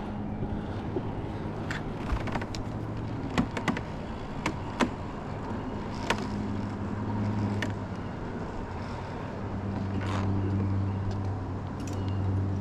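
Steady low engine hum that swells and fades, with scattered sharp clicks and knocks from climbing harness gear as a person steps across a short tightrope.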